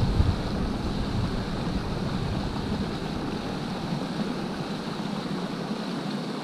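Mountain stream rushing over rocks through a small cascade, a steady hiss of water, with wind rumbling on the microphone that dies away over the first few seconds.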